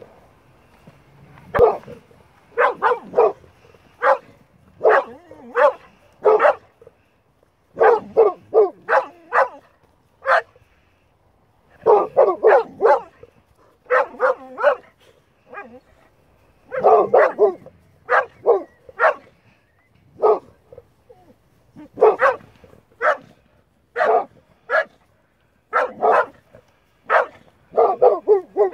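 Boxer dogs barking: short, loud barks in quick runs of two to four, repeating with short gaps.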